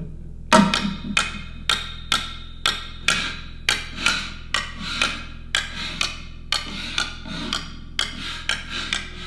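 Struck percussion in a live ensemble piece. Sharp knocks fall in a steady rhythm of about two a second, each with a short ringing tail. The first knock, about half a second in, is the loudest.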